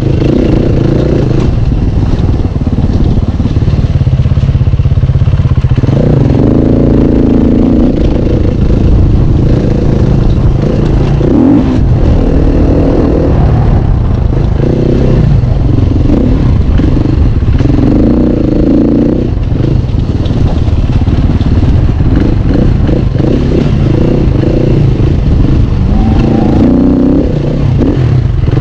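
KTM enduro motorcycle engine, heard from the rider's own bike, revving up and easing off again and again with the throttle as it rides a dirt trail.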